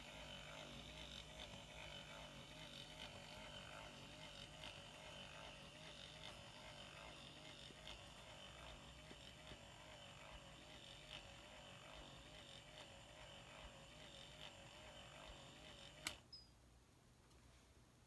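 Faint hum and whir of the small electric drive motor in an early Mars 888 oscillating warning light, its tone wavering steadily up and down. About sixteen seconds in there is a sharp click and the running sound stops as the light is switched off.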